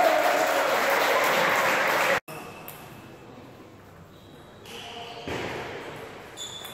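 Loud shouting and cheering voices in a large sports hall, cut off abruptly about two seconds in. Then a table tennis rally: a few sharp clicks of the ball striking bats and table.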